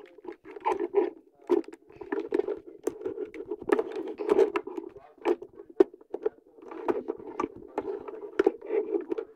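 Plastic toy figure being handled, its parts turned and clicked into place: irregular clicks, small knocks and scraping.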